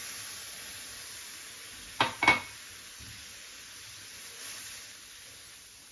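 Milk poured into a hot pan of fried green peppers and flour, the pan giving a steady low sizzle. About two seconds in come two sharp knocks of kitchenware in quick succession, then soft stirring.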